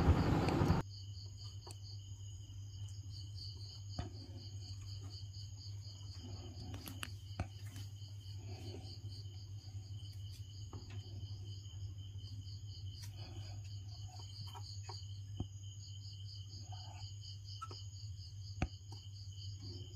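Steady, rapidly pulsing chirping of crickets over a low hum, with a few faint clicks.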